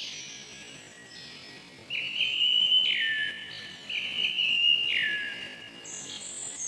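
Forest birds singing: one bird gives two loud whistled phrases about two seconds apart, each a held note that slides down at the end, while other birds chirp higher and fainter around them.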